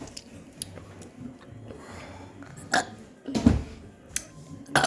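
A single low, short burp about three and a half seconds in, with a few sharp clicks before and after it.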